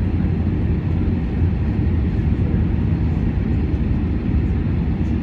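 Steady cabin rumble of an Airbus A340 airliner on approach to landing: engine and airflow noise heard from inside the passenger cabin, deep and even throughout.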